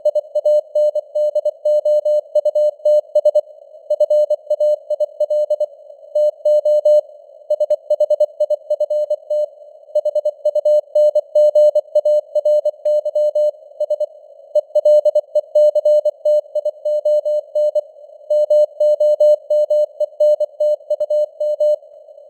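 Morse code (CW) sent at 24 words per minute as a single keyed mid-pitched tone in a quick rhythm of dots and dashes, spelling out news headlines. The tone sits in simulated radio noise, a narrow band of hiss around it, with the signal strength fading up and down (QSB).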